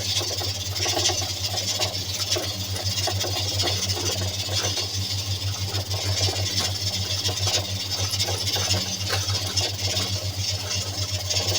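Steady low hum with a hiss above it, and faint scattered clicks and knocks throughout.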